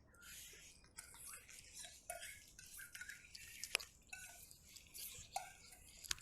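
A cat eating: a run of irregular, wet, crackly chewing noises with a couple of sharp clicks.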